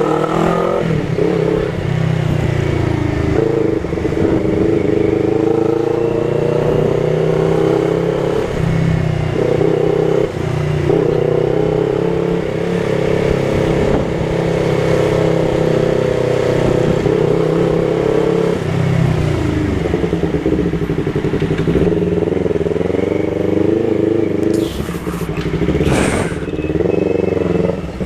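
Yamaha MT-03 motorcycle running through a Jeskap aftermarket exhaust with its dB killer baffle removed, ridden on the road. The engine pitch climbs and falls with throttle, stepping at a few gear changes.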